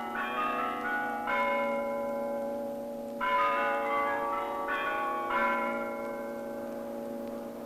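Church bells ringing: several bells struck in turn, fresh strikes coming every second or two, their tones ringing on and overlapping one another.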